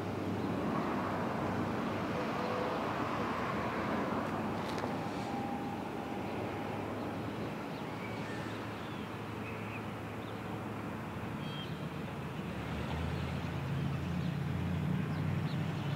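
Outdoor street ambience: steady traffic noise with a low engine hum that gets louder near the end as a vehicle draws closer, and a few short, high chirps.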